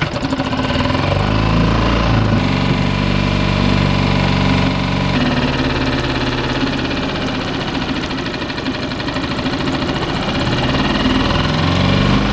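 Tohatsu four-stroke outboard motor starting up and running steadily, its engine speed shifting a few times and rising near the end. It is being run for a few minutes to draw freshly stabilized fuel through its fuel system.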